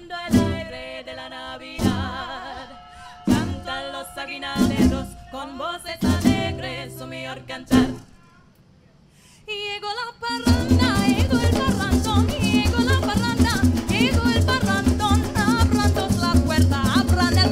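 Live parang band playing: acoustic guitar and cuatro strike spaced chords under held group singing, then stop for about two seconds. After a short rising vocal note, the full band comes back in with a fast, steady strummed rhythm, percussion and lively singing.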